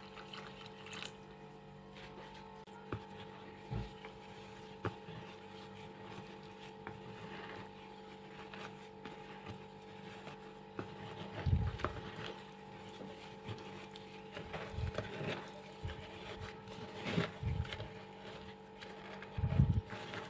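Dry clay being crushed and crumbled by hand: scattered small crackles and crunches, with a few louder crunching bursts about halfway through and near the end, over a steady faint hum.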